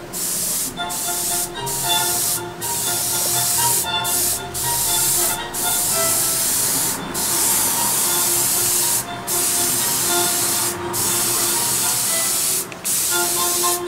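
Sata Graph 3 airbrush with a 0.2 mm nozzle hissing as it sprays paint, in strokes broken by about ten brief pauses where the trigger is let off.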